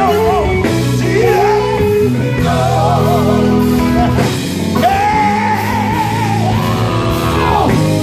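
Live gospel quartet music: a lead singer over a loud amplified band, holding long notes that slide up and down, with one long rising-then-falling note near the end.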